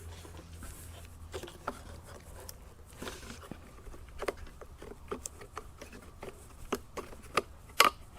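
Small irregular clicks and light taps of a vintage transistor tester being handled and turned over, with the sharpest click near the end, over a faint steady hum.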